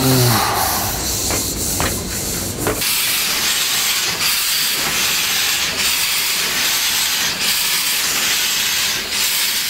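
Narrow-gauge steam locomotive passing close by, its running gear rumbling and knocking amid escaping steam, with a falling whistle note dying away at the start. After about three seconds this gives way to a steady hiss of steam from a standing locomotive.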